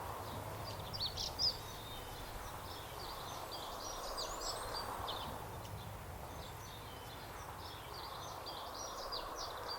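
Small birds chirping, many short high calls one after another, over steady outdoor background noise.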